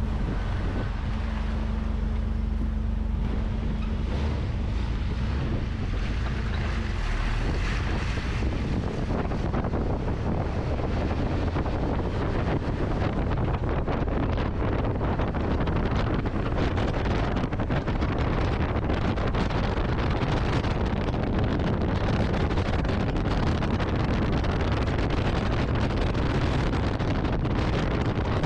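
Wind rushing over a microphone mounted on the outside of a moving Jeep Wrangler, with road and tyre noise from the driving Jeep. The rush grows fuller about nine seconds in, as the Jeep picks up speed.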